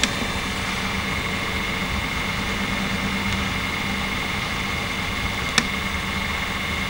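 Diesel engine of a mini excavator idling steadily, with a single sharp click about five and a half seconds in.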